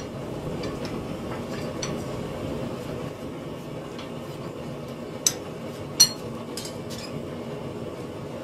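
A few light metallic clinks that ring briefly, steel striking or being set against steel, over a steady background rush of noise; the two loudest clinks come about five and six seconds in.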